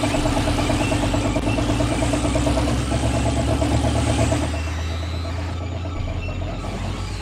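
A steady mechanical drone with a fast, even pulsing over a constant low hum. About four and a half seconds in it drops in level and thins out, leaving mostly the low hum.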